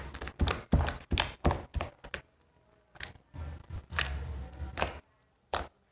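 Homemade slime squeezed and pressed by hand, giving a quick run of short wet squelches and clicks with a few longer squishes.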